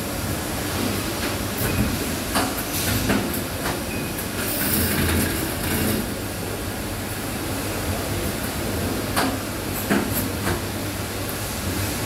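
Automated assembly cell with Epson SCARA robot arms and a rotary indexing table running: a steady machine hum with scattered sharp clicks and clacks from the tooling, and a short hiss of air about four and a half seconds in.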